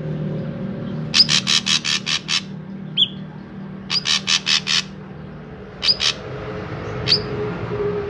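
Ashy drongo calling in bursts: a fast run of about seven sharp notes just after a second in, one short falling note around three seconds, another fast run of about six notes around four seconds, then two short notes near six seconds and a single one near seven.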